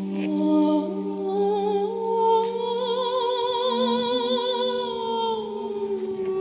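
Slow, meditative background music: a steady drone under a singing voice that holds long notes with vibrato.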